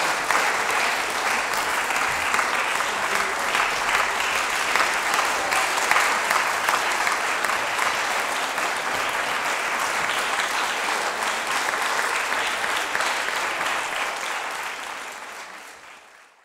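Audience applauding steadily, a dense patter of many hands clapping, which fades away near the end.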